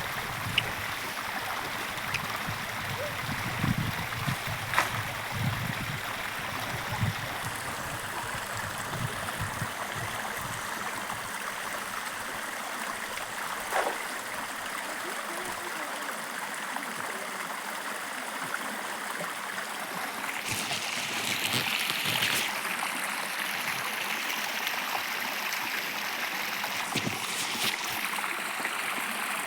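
Stream water flowing steadily, with a few low thumps and clicks in the first several seconds and a brief louder hiss about twenty seconds in.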